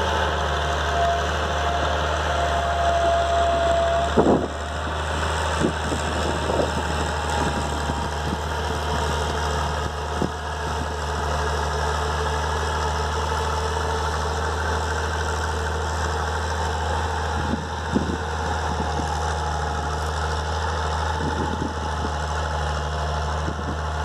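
Massey Ferguson 296 tractor's diesel engine running steadily with a deep, throaty note, with a few short knocks along the way, most clearly about four seconds in and near eighteen seconds.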